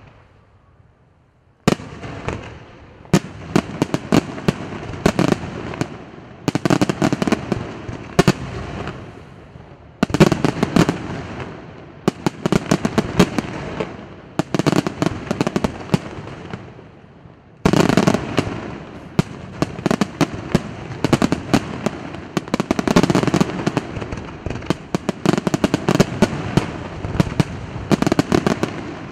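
Aerial fireworks display: shells bursting with sharp bangs over a dense, continuous rattle of small pops. It starts suddenly about two seconds in after a short lull, with fresh loud volleys about ten and eighteen seconds in.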